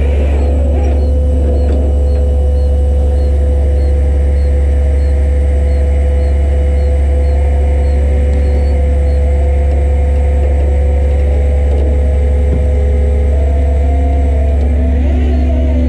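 Steady low drone of a running vehicle engine with a constant hum over it, holding an even level throughout.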